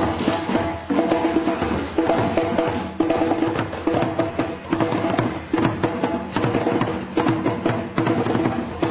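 Background music: sustained pitched notes over a busy pattern of quick, crisp percussion hits.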